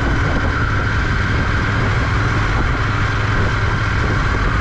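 Motorcycle cruising at about 50 km/h: a steady engine and road drone with wind noise and a steady high whine.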